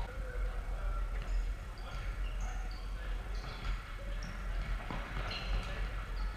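Futsal play on a wooden sports-hall floor: indoor shoes squeaking in short bursts as players turn and run, with occasional thuds of the ball being kicked, echoing in the large hall.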